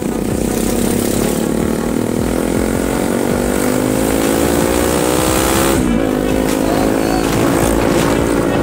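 Bajaj Pulsar RS200's single-cylinder engine accelerating on the road: its pitch climbs steadily for about six seconds, drops sharply at an upshift, then climbs again, with wind rush over it.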